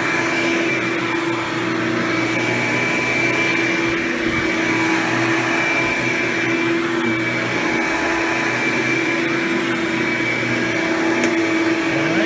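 Hoover Power Drive Supreme upright vacuum running steadily with a Quadraflex brush roll fitted, its motor giving an even rushing noise with a steady hum and a high whine.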